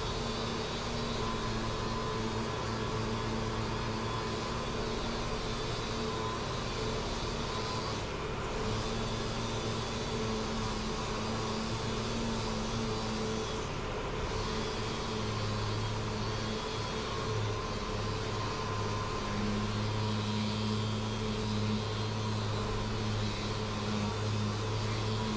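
Dual-action (DA) orbital sander running steadily, sanding a plastic car bumper with 180-grit paper to smooth it: a constant motor hum with a sanding hiss. The low hum grows stronger about halfway through.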